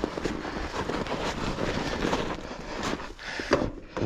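Irregular crunching and knocking of a rider running his mountain bike up a short snowy climb: footsteps and tyres in snow, with a louder knock near the end.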